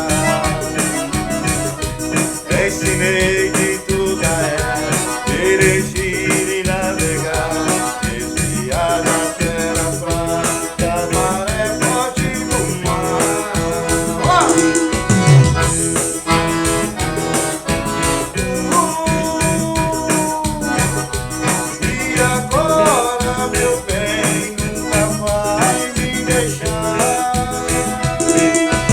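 Forró band playing an instrumental passage of the song: a sustained lead melody over a fast, steady shaker and drum beat.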